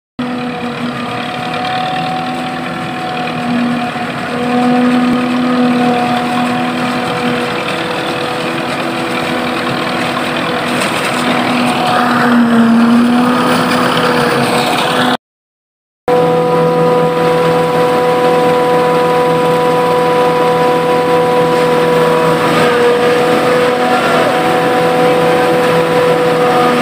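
Claas self-propelled forage harvester chopping standing maize, with a tractor pulling the silage trailer alongside: a loud, steady machine drone made of several held tones. The sound cuts out for under a second about halfway through, then carries on much the same.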